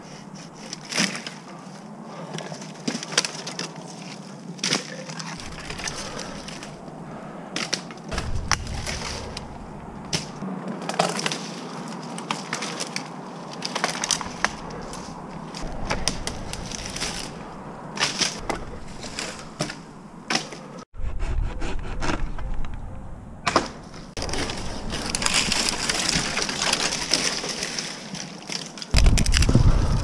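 Pruning saws cutting dead American elm branches, with dead wood cracking and snapping at irregular intervals. Near the end a loud low rumble takes over.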